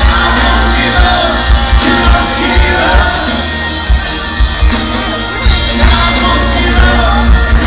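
Live rock band playing loud: a steady kick-drum beat under electric guitars, with a lead singer's voice over it.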